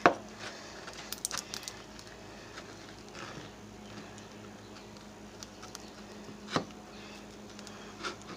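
A few sharp clicks and light taps: one at the very start, the loudest, and another about six and a half seconds in, with fainter ticks between. Under them runs a steady low electrical hum.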